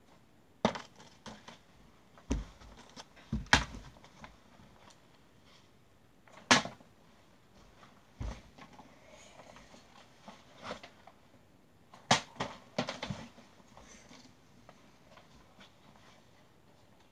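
Scattered thumps and knocks with quiet between them: footsteps on the floor and handling noise, a few deep thuds among lighter taps.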